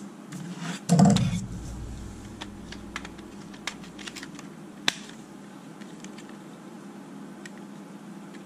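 Light plastic clicks and rattles from handling a car instrument cluster and its circuit board, with a heavier knock about a second in as it is set down or picked up. Scattered small clicks follow over a low steady hum.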